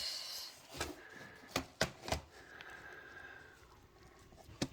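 Pieces of rough opal being handled, giving a few sharp light clicks and knocks at irregular intervals, with the last one near the end.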